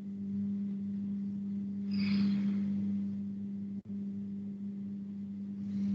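A steady low hum: one held tone with a faint higher overtone, unchanging throughout, with a short soft rustle about two seconds in and a small click near four seconds.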